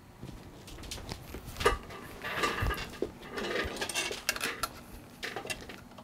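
Irregular clicks and light clatter of small tools and a bare SD card board being handled and moved on a bench microscope's stage, with one sharper clack a little under two seconds in.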